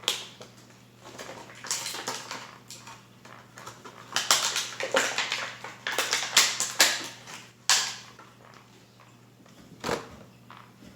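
Toy packaging being handled and opened: irregular crackling and crinkling in bursts, busiest in the middle, with a sharp crack at the start and a short knock near the end.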